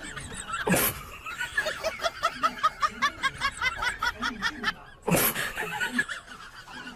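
A person laughing in a quick run of short 'ha' sounds, about five or six a second, with a sudden loud burst of noise about a second in and another near the end.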